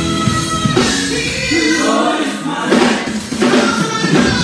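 Live gospel singing by a group of women's voices through microphones and stage speakers, over continuous backing music.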